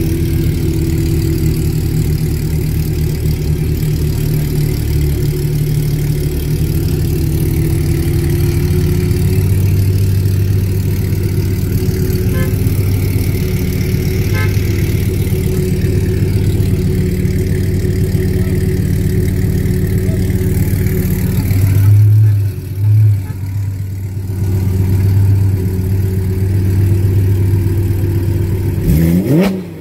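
Ferrari 812 Superfast's naturally aspirated 6.5-litre V12 idling steadily through an iPE aftermarket exhaust. Two short throttle blips come in quick succession about three-quarters of the way through.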